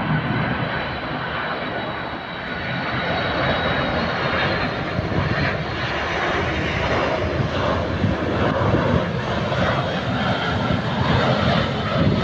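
Twin-engine jet airliner on final approach, gear down, passing low overhead. Its engine noise is steady and grows louder over the first few seconds as it comes closer.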